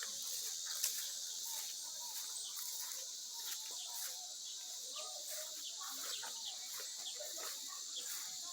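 Soft, scattered calls of ducks and geese over a steady high-pitched insect buzz that pulses about twice a second.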